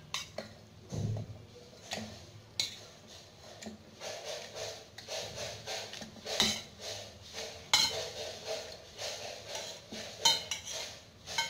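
Steel bowl and utensils clinking and knocking against a stainless steel mixer-grinder jar as cooked tomato and carrot pieces are tipped in, with their cooking water pouring in between the knocks.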